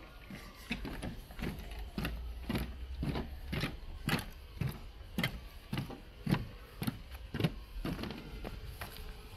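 Walking footsteps at a steady pace of about two steps a second, first thudding on the wooden planks of a boardwalk ramp, then on a paved path near the end.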